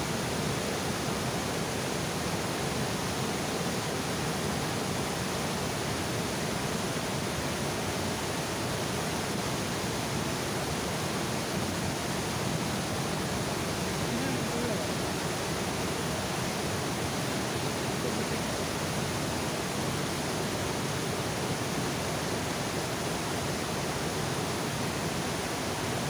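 Water overflowing a dam and pouring over its spillway, a steady, even rush of falling water.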